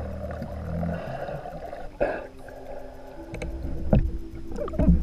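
Muffled underwater sound picked up by a camera in a waterproof housing: a churning wash of water for about two seconds, then after an abrupt change, steady low tones with two dull knocks near the end.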